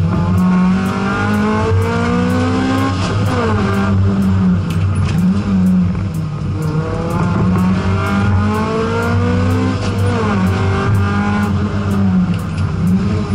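Honda CRX race car's engine heard from inside the cabin, revving hard: it climbs in pitch for about three seconds, drops sharply, then climbs and drops again near the end.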